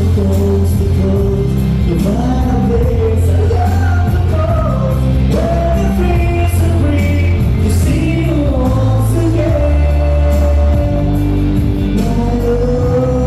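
Music with singing: a sung melody wavering over steady bass notes.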